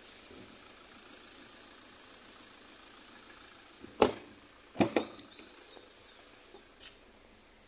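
Rear door latch and handle of a Toyota Hilux double-cab pickup clicking as the door is opened: a sharp click about four seconds in, then a louder double snap about a second later.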